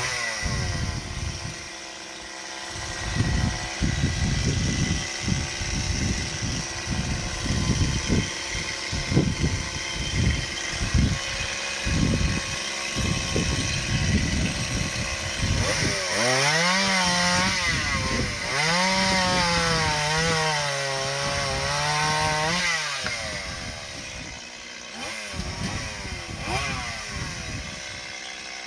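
Mini chainsaw running and cutting into tree branches, its sound coming in rough, uneven strokes for the first half. Past the middle, a steady pitched whine of the motor holds for several seconds, wavering up and down in pitch, then drops away.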